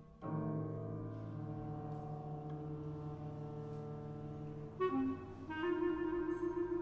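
Contemporary chamber music for clarinet, violin, cello and piano. A low chord sets in just after the start and is held for about four and a half seconds. A new, higher held note, clarinet-like, enters about five and a half seconds in.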